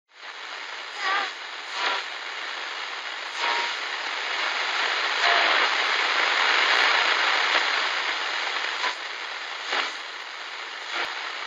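A steady rushing hiss that swells briefly several times and grows louder in the middle for a few seconds.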